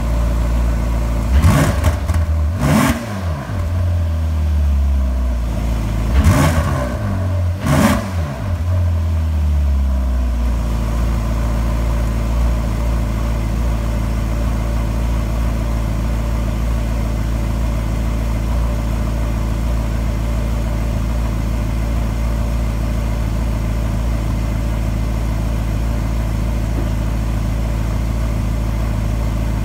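Ferrari California V8 heard at the exhaust tips, warming up from a cold start. It is blipped four times in two quick pairs, each rev climbing sharply and falling back, then settles into a steady idle from about a third of the way in.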